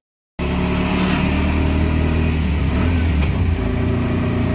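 Engine running steadily with road noise, heard from inside a moving auto-rickshaw; it cuts in abruptly after a moment of silence, about half a second in.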